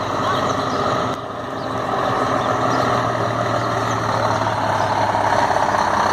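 Scania 124G 360 truck's straight-six diesel engine running as the loaded rig drives toward the listener. The sound dips briefly about a second in, then grows steadily louder as the truck comes close.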